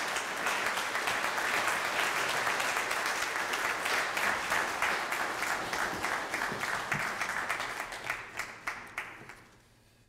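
Audience applauding, the clapping thinning out to a few scattered claps and dying away near the end.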